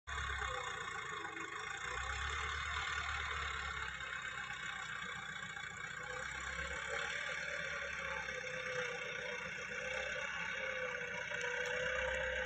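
Farm tractor's diesel engine running steadily under load as it works the soil.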